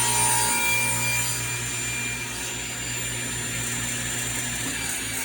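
Table saw running, its blade cutting a 45-degree miter through a piece of wood with a steady motor hum.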